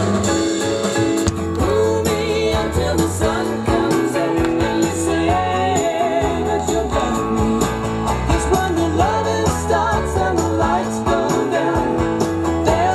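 Music led by guitar, with a singing voice.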